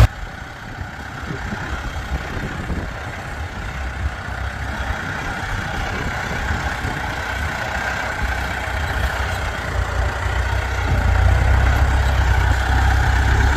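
Massey Ferguson 290 tractor's diesel engine running steadily, getting gradually louder and loudest near the end.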